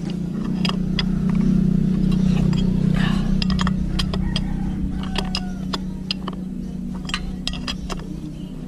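A passing vehicle's engine hum swells and then slowly fades. Over it come scattered light metallic clicks and clinks as the scooter's rear axle nut is worked loose with a wrench.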